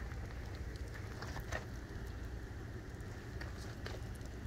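Wax-soaked cardboard burning in a paraffin-filled cookie-tin firepit: the flames crackle steadily, with a few sharper pops about a second and a half in and again near the end, over a low rumble.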